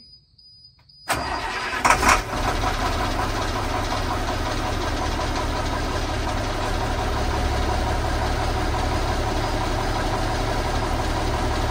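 Turbocharged truck engine catching abruptly about a second in, with a short loud flare around two seconds, then settling into a steady idle.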